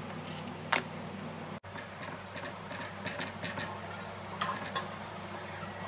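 Kitchen utensil sounds over a steady low hum: a vegetable peeler scraping and clicking on an apple, with one sharp click under a second in, then light taps and scrapes of a silicone spatula stirring custard in a steel pan, several in a quick cluster near the end.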